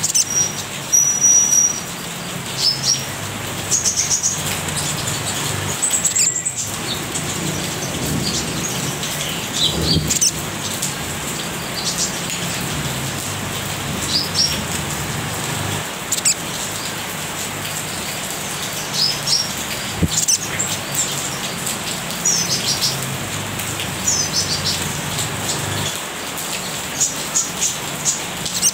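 Caged little spiderhunter (sogok ontong) giving short, high, scattered chirps and chattering calls as it starts to sing, over a steady low background hum.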